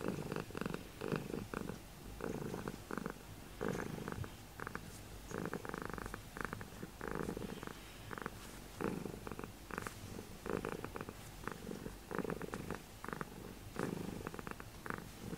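A domestic cat purring close to the microphone, a steady rumble that swells and eases in a rhythm of about one cycle a second as it breathes in and out. The purring is a sign of the cat's contentment at being held and petted.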